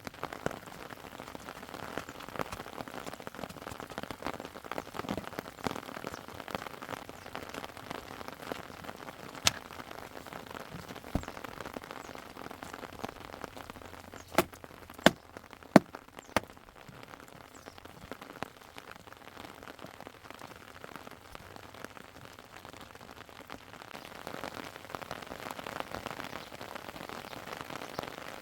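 Steady rain pattering, with a few sharp knocks, most of them bunched together a little past halfway.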